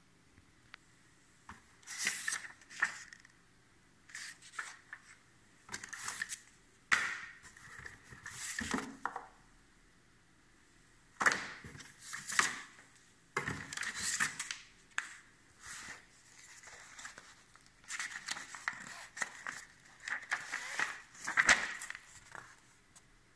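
Packaging being handled and torn open: irregular bursts of rustling, crinkling and tearing, with short quiet gaps between them.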